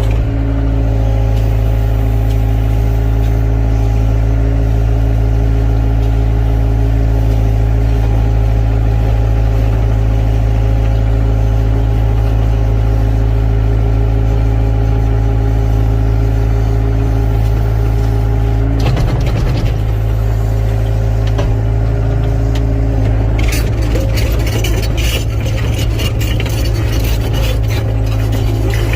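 Excavator's diesel engine running steadily at constant speed. Around twenty seconds in the sound shifts, and in the last few seconds a rapid clatter of knocks rides over the engine.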